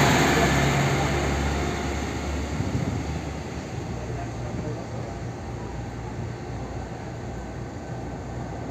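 Koleje Dolnośląskie SA134 (PESA 218M) diesel railcar pulling away from the platform, its engine hum fading over the first few seconds as it draws off, leaving a quieter steady rumble.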